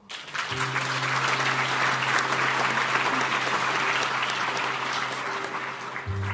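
Theatre audience bursting into sustained applause, starting suddenly. A held low chord from the show's band plays underneath.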